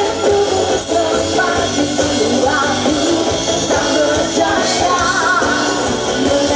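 A band playing a song live, with a singer's voice carrying the melody over continuous guitar and drum backing.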